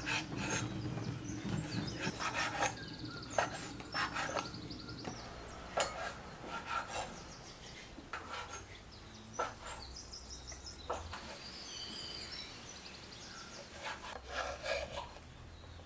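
Irregular scraping and knocking on wood, with a few faint bird chirps in the middle.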